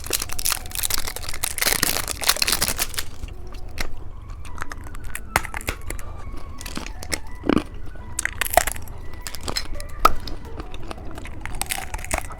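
Plastic candy wrappers crinkling and tearing, thick for the first few seconds, then scattered crackles and crunches.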